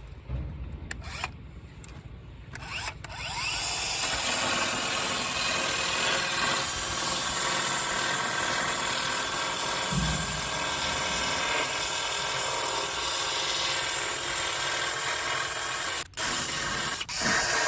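Handheld power grinder grinding corrosion and paint back from a car's wheel-arch lip, starting about three seconds in and running steadily, with two brief breaks near the end.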